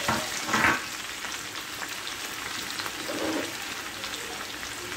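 Onions frying in hot vegetable oil in a wok: a steady crackling sizzle, with a brief louder burst about half a second in.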